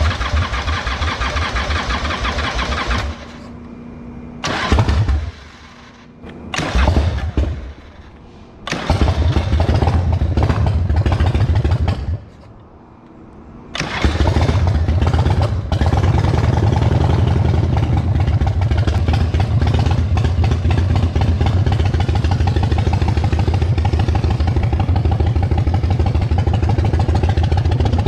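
1999 Harley-Davidson V-twin engine being started several times, catching briefly and dying in short bursts. About halfway through it catches and keeps running steadily.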